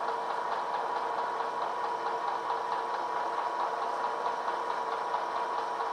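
Bridgeport vertical milling machine running steadily as its table feeds a cast locomotive cradle past an end mill, with a steady motor hum.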